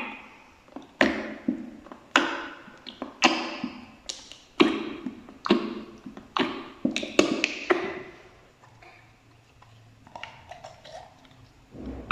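Slime being pressed and squished, making wet, sharp pops and clicks about once a second, each fading quickly. The sounds turn softer and sparser about two-thirds of the way through.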